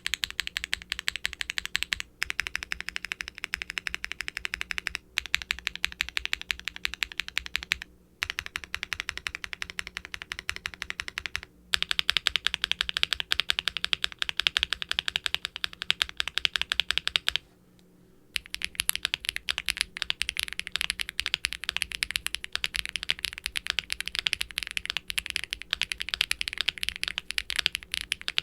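Fast typing on a Qwertykeys QK75N mechanical keyboard fitted with Akko Cilantro tactile switches, an FR4 plate and GMK double-shot ABS keycaps: a dense stream of keystrokes with a poppy, marbly sound. The stream is broken by a few short pauses, the longest about two-thirds of the way in.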